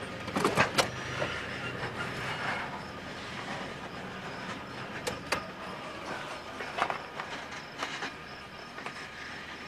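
Freight train of open-top hopper cars rolling past, its steel wheels clacking on the rails over a steady rolling noise. The clacks come in short groups, loudest in a cluster about half a second in.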